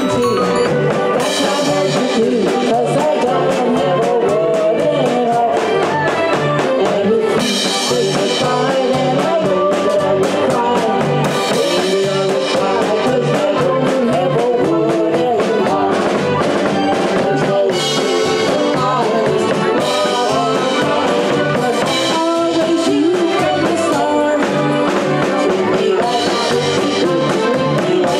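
Live Bavarian-style band playing, with accordion, trombone and drum kit keeping a steady beat.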